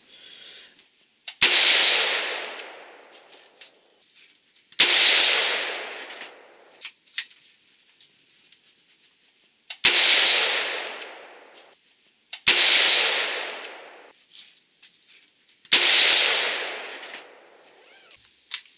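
Five single rifle shots from a Double D Armory SST AR-15 in 5.56 NATO, fired a few seconds apart, each cracking sharply and rolling off over about a second and a half. A few faint clicks come between the shots.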